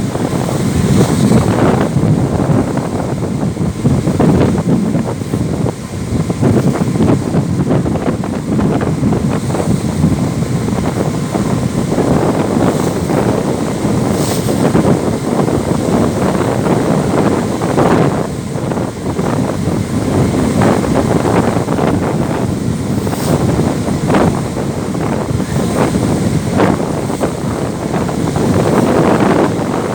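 Strong wind buffeting the microphone in loud, gusting rumbles on a ferry's open deck, with a shirt flapping in the wind.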